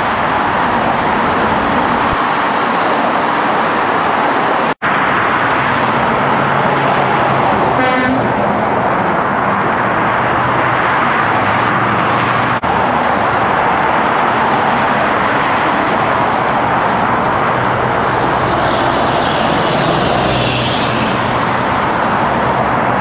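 Steady roar of passing freeway traffic, with one short car horn honk about a third of the way in.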